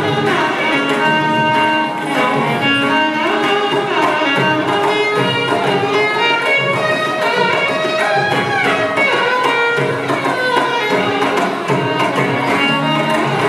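Carnatic music for a Bharatanatyam dance: a violin melody with gliding notes over a hand-drum rhythm.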